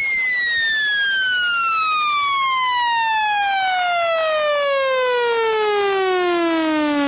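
Speaker water-eject tone, meant to shake water out of a phone's speaker: one continuous electronic tone that slides steadily down in pitch, from a high whistle to a low hum.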